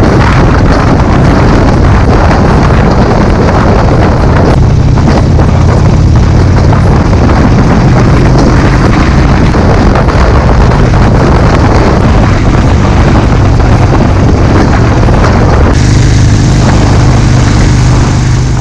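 Harley-Davidson V-twin motorcycle engine running under way, heard from the rider's seat with heavy wind noise on the microphone. The engine note steps up about four and a half seconds in, and the sound changes abruptly a few seconds before the end.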